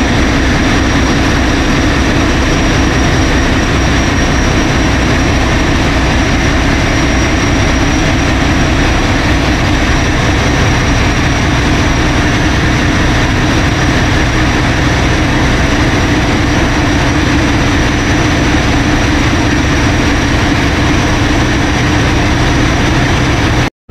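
Large marine diesel engines running in a ferry's engine room: a loud, steady, dense mechanical drone with a thin steady high tone above it. The sound cuts out for a moment near the end.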